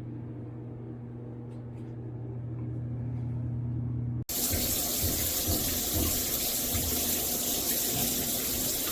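A steady low hum for about four seconds, then an abrupt change to loud water spraying from a shower head, a dense even hiss that carries on until the end.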